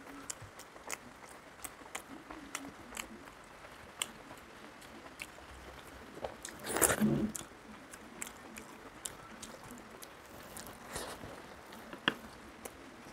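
Close-up wet chewing and lip-smacking of a person eating rice and curry by hand, with scattered sharp mouth clicks. A louder, longer mouth sound about seven seconds in, another around eleven seconds, and a sharp click just after twelve seconds.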